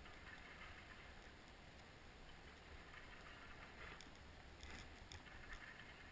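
Near silence: faint outdoor hiss with a few soft ticks.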